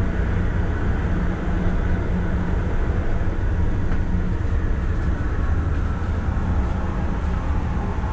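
Steady low rumble of a rubber-tyred airport people mover running through its underground tunnel, heard from inside the car. A low hum fades about halfway through, and a faint whine sits above the rumble.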